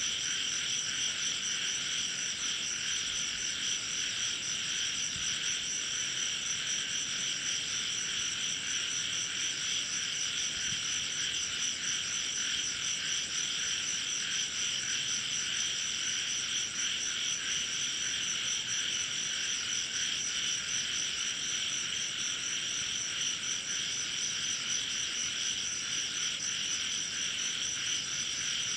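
A steady, unbroken chorus of frogs and insects, trilling continuously.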